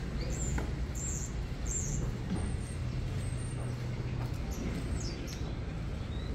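Steady low rumble of vehicle traffic, with a few short, high bird chirps over it.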